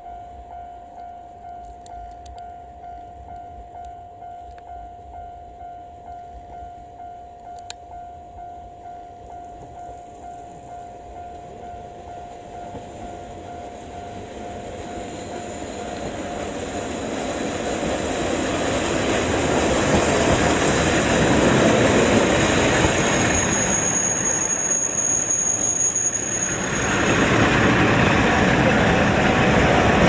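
Level-crossing alarm ringing in a steady repeating pattern while a two-car KiHa 40 diesel railcar train approaches. From about halfway the railcars' diesel engine and wheels grow steadily louder until the train passes close by near the end, with a brief high wheel squeal on the curve.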